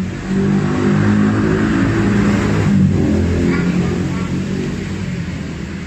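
A motor vehicle engine passing close by, its revs shifting, growing louder then fading away.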